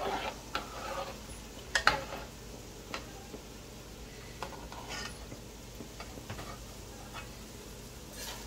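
A long metal spoon stirring gulab jamun dough balls frying in oil in an aluminium pot, clinking and scraping against the pot at irregular moments over a faint steady sizzle of the oil.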